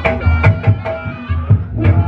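Reog Ponorogo accompaniment music: drum strokes at an uneven, quick rhythm over sustained wind-instrument tones and ringing struck notes.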